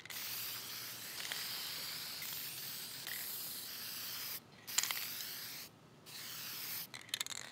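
Aerosol spray can of toner hissing as it sprays a wooden table leg. One long spray of about four seconds, then two shorter ones with brief gaps between, and a few sharp clicks near the end.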